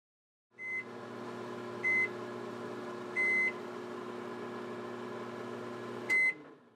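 A steady electric hum with four short, high electronic beeps over it, the third a little longer than the others. The hum cuts off with the last beep near the end.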